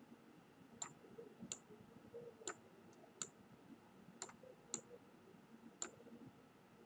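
Faint computer mouse clicks and keystrokes: about eight short, sharp clicks, irregularly spaced.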